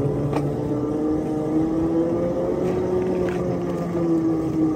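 7½-inch gauge ride-on locomotive running slowly along the track, a steady motor hum whose pitch drifts gently up and down, with a few faint ticks.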